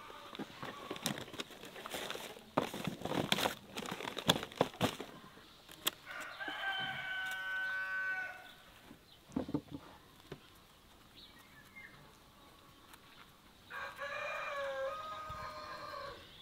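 A rooster crows twice, each crow about two seconds long, the second near the end. Scattered clicks and rustling come before the first crow.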